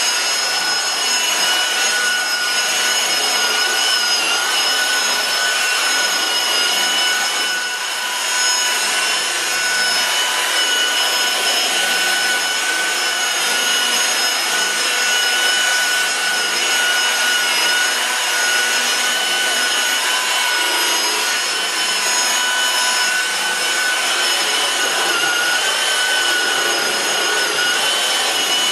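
Electric rotary polisher with a white buffing pad running steadily against a truck's painted panel, working polishing compound into the paint: a constant motor whine over the rubbing of the pad on the paint, easing briefly about eight seconds in and again near twenty seconds.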